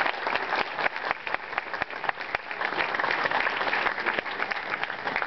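Audience applauding, many people clapping at once in a dense, steady patter.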